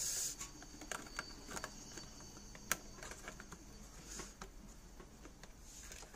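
Scattered light clicks and plastic rustling as a circuit board is handled and fitted back into the plastic housing of an electric hot-water dispenser, with one sharper click about three seconds in.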